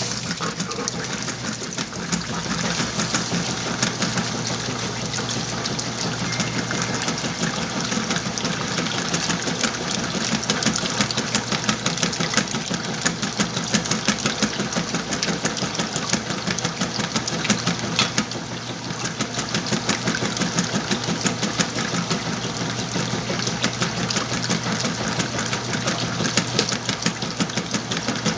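Whirlpool washing machine washing a large load of coloured clothes: a steady low hum under a continuous, busy churning rattle.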